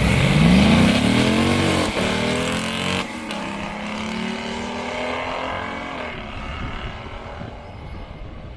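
V8-swapped Mazda RX2 launching hard down a drag strip: the engine note climbs steeply, drops at upshifts about two and three seconds in, then climbs again and fades as the car pulls away.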